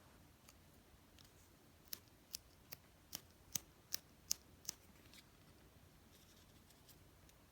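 A run of about eight small, sharp clicks, two or three a second, between about two and five seconds in, over near silence.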